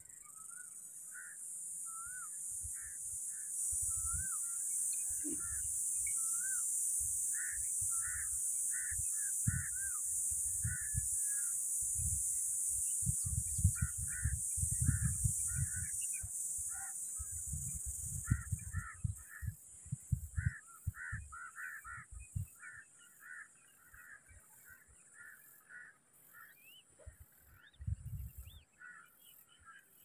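Repeated short bird calls over a steady high-pitched buzz. About two thirds of the way through the buzz gives way to a fast pulsing, and low thumps come and go throughout.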